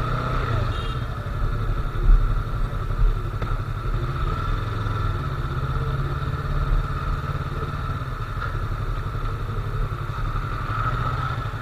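Yamaha R3's parallel-twin engine running at low revs as the motorcycle rolls slowly, the pitch rising and falling slightly with the throttle, with the radiator cooling fan switched on.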